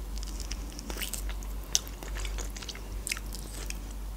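Close-up eating sounds of mackerel being nibbled off the piece held at the mouth: small bites and wet smacks, scattered sharp clicks with one louder click a little under two seconds in.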